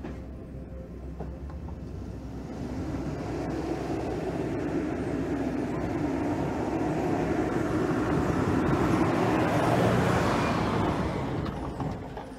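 2022 Toyota Tundra pickup driving along a dirt trail and passing close by: engine and tyre noise grow louder over several seconds, are loudest about ten seconds in, then fade quickly.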